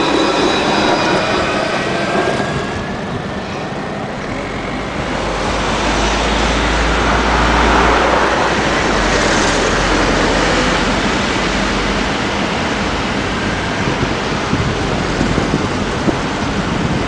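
Alstom Citadis low-floor tram passing close, its electric drive whining with several steady high tones that fade over the first couple of seconds. Then steady street traffic noise with a low wind rumble on the microphone, swelling to a peak about eight seconds in.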